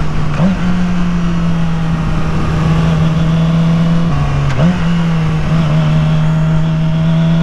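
2006 Yamaha R6's 600 cc inline-four engine running at high revs while the sport bike is ridden, with a steady high drone and short rev blips, one about half a second in and a dip followed by another blip a little past the middle, over constant wind rush.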